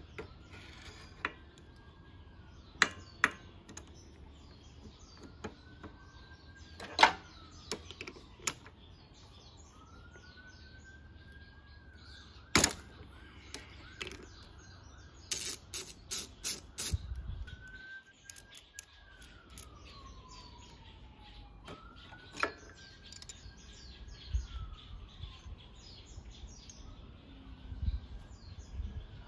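Metal hand tools clinking against a scooter's magneto flywheel as it is held with a flywheel holder and its nut is worked with a 17 mm socket and ratchet: scattered sharp knocks and a quick run of clicks about halfway through. Birds chirp throughout, and a whistled call that rises, holds and falls repeats about every five seconds.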